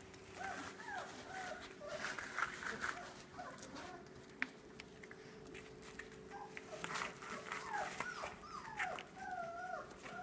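Puppies whimpering and yipping in many short cries that bend up and down in pitch, with scattered light clicks.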